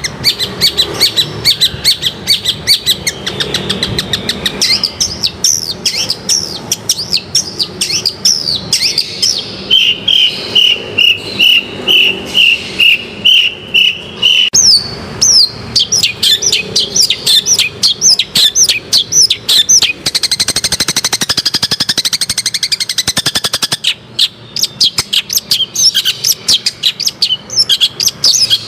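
Long-tailed shrike (cendet) in full song: a fast, varied run of sharp chirps and whistled notes. About ten seconds in comes an even series of about nine repeated notes, and around twenty seconds in a dense, rapid chatter.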